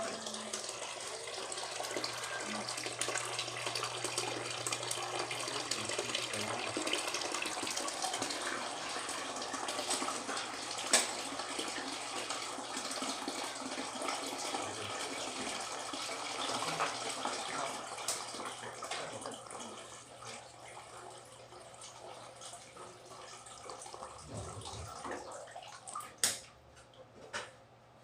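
Running water splashing steadily, with a low hum under it for the first several seconds. The water sound fades to a fainter level about two-thirds through, and a few sharp knocks come near the end.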